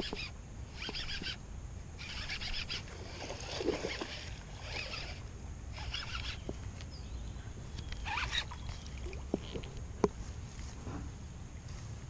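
A hooked bass being fought and reeled to the bank on a baitcasting rod: a series of short bursts of reel winding and water splashing about once a second, with a few sharp clicks.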